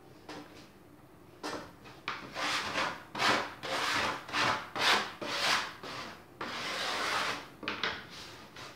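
Hands kneading crostata pastry dough, a run of rubbing, pushing strokes at roughly two a second, with one longer stroke near the end.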